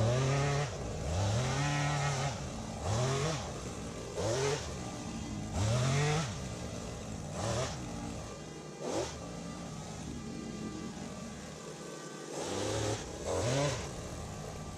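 ECHO pole saw's small two-stroke engine being throttled up and dropped back over and over, a rise and fall in pitch about every second and a half, as the power pruner cuts branches. It settles to a lower, steadier run for a few seconds past the middle before revving again near the end.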